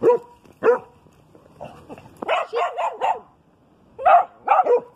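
Dog barking in short bursts: two single barks, then a quick run of about five, then two more near the end.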